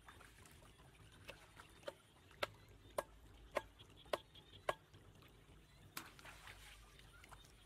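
A run of sharp knocks, like chopping or striking: five strong, evenly spaced strikes about two a second near the middle, with fainter taps before and after.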